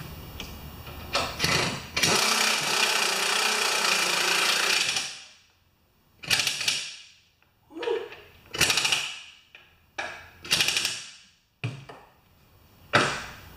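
Corded electric impact wrench running down engine mounting bolts into an aluminum engine base: one run of about three seconds, then three short bursts as the bolts seat, with a few light knocks of metal in between.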